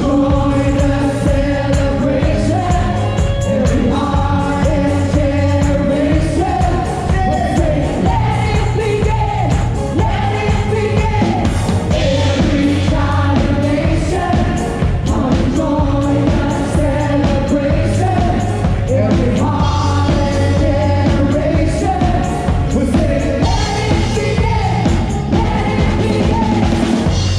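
Worship song played by a band with drums and sung vocals, loud and continuous.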